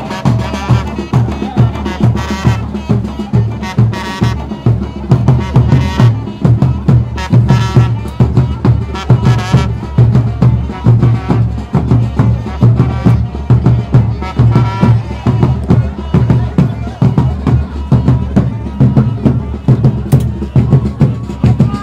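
Drum-led music with a steady, quick beat of low drum strokes and a pitched melodic line above it.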